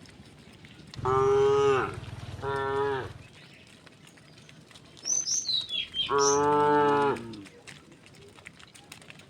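Cattle mooing: two moos in quick succession about a second in, then a third, longer moo about six seconds in.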